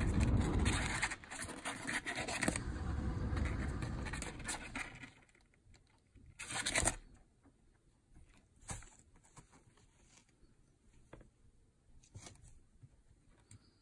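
Kittens' claws scratching and scrabbling on a cardboard box and rug, a dense rustle for about the first five seconds. After that come scattered scratches, with a louder burst about six and a half seconds in as a kitten claws up the cardboard wall.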